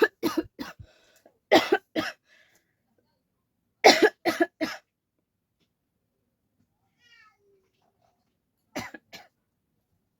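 A person coughing in short hard bursts: a quick run of coughs at the start, two more about a second and a half in, three in quick succession around four seconds in, and two near the end.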